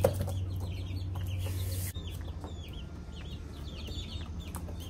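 Young chicks, about four weeks old, peeping: many short, high chirps that dip in pitch, several a second. A brief knock and wing flutter at the start as one chick flaps across the box.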